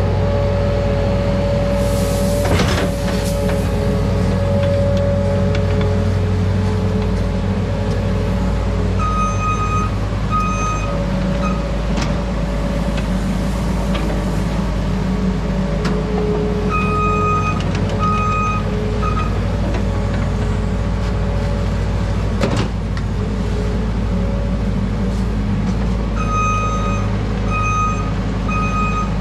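Earthmoving machinery running steadily, with a reversing alarm beeping about twice a second in three short runs. A few sharp knocks and brief hisses are heard over the engine.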